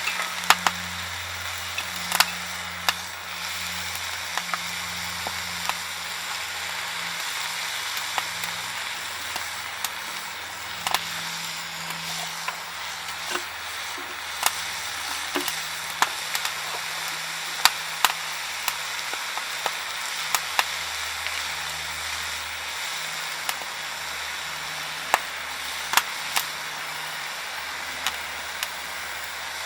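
Softwood firewood fire burning with a steady hiss and irregular sharp pops and crackles.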